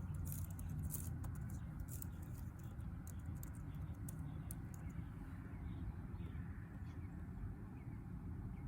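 Typing on a computer keyboard: a quick, irregular run of clicks over the first few seconds, then it stops. A steady low hum runs underneath.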